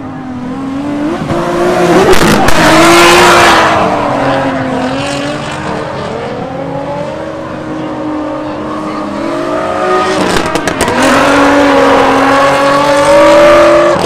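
Drift cars' engines running hard at high revs, pitch rising and falling, with tyre noise as they slide through the course. It swells loudest about two to four seconds in and again from about ten seconds on, with a quick run of sharp cracks just after ten seconds.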